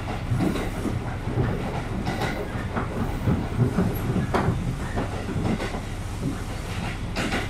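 KiHa 200 series diesel railcar running at speed, heard from inside the carriage: a steady low rumble with irregular clacks and knocks from the wheels on the rails. The sharpest knocks come about four and a half seconds in and again near the end.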